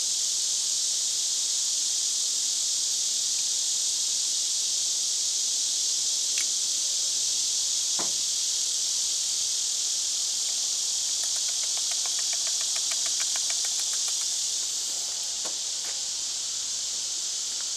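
Steady high-pitched drone of an insect chorus. A few light clicks, and a short run of rapid ticks about two-thirds of the way through, come from a muzzleloader being loaded.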